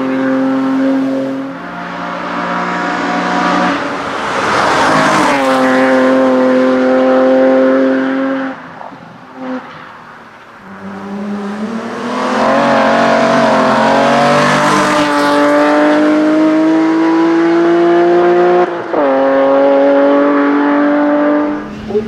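3-litre BMW E30 hillclimb race car's engine at high revs under hard acceleration. Its note jumps in pitch at each gear change. It falls away for a couple of seconds a little before the middle, then pulls hard again for the rest.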